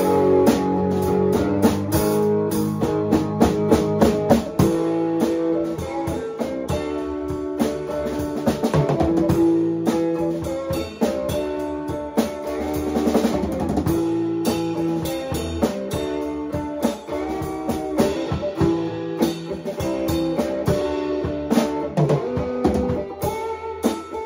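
A rock band playing live in a small rehearsal room: drum kit with a steady beat under strummed guitar chords. The full band comes in all at once.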